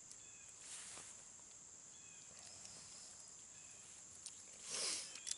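Steady high insect drone of crickets in woodland, with a few faint bird chirps and a short rushing hiss near the end.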